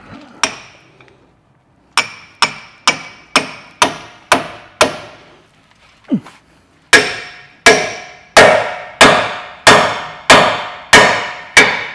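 Hammer blows on a fork-type ball joint splitter wedged between a Ford Fiesta's lower ball joint and hub, metal on metal, each blow ringing briefly. One sharp blow, then a run of lighter blows about two a second, a short pause, and then heavier, louder blows at a steady pace as the fork is driven in to split the joint.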